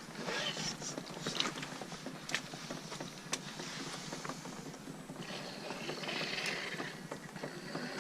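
Axial SCX10 II RC rock crawler driving through mud and over rocks: its small electric drivetrain running with wet, squelchy tire noise and scattered sharp clicks and knocks.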